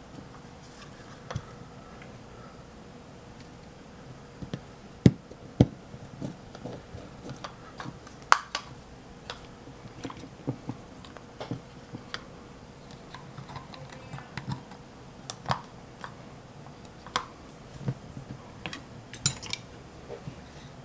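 Irregular light clicks and taps of small plastic and metal parts and hand tools being handled on a workbench, as a small circuit-board module is fitted back into its plastic frame, with sharper knocks about five and eight seconds in. A faint steady hum lies underneath.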